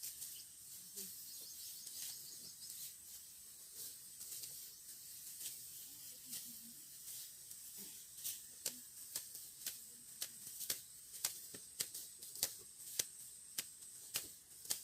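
Rice stalks being cut by hand with a sickle: a series of crisp snips. They are irregular at first, then come sharper and faster, about two a second, from about eight seconds in, over a steady high hiss.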